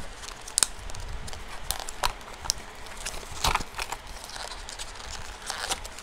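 Small cardboard package being pulled and torn open by hand: irregular crackles and sharp snaps of card, the loudest about half a second in and again about three and a half seconds in.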